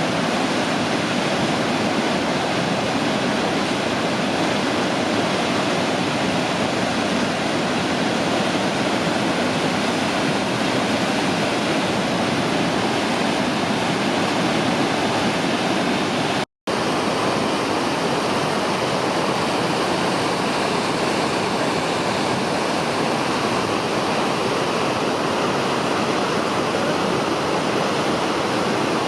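Rushing water of a mountain stream, a loud, steady rush that cuts out for an instant just past halfway and then resumes with a slightly different balance.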